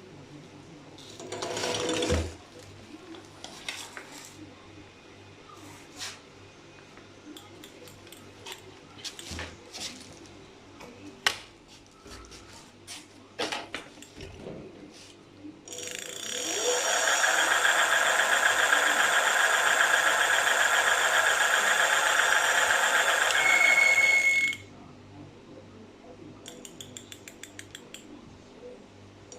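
E-bike conversion kit motor running for about nine seconds, starting a little past the middle and cutting off suddenly, with a loud, steady grinding buzz. The owner hears it as grinding at low revs after fitting a new controller.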